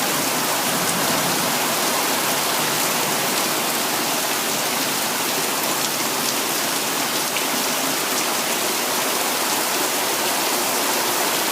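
Heavy rain pouring down in a steady downpour, drumming on the ground and porch with no let-up.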